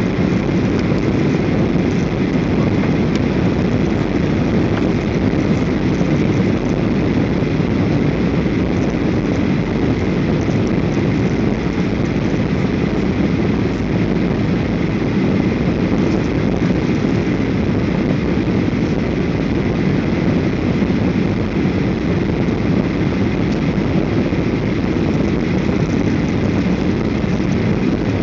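Steady cabin noise of an airliner descending on approach to land, heard from a window seat: an even, low rumble of engines and airflow with a faint steady high tone over it.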